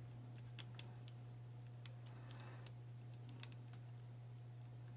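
Faint, scattered small clicks of a lock pick probing the pins inside a Burg Wächter padlock, about eight in the first three seconds, over a steady low hum.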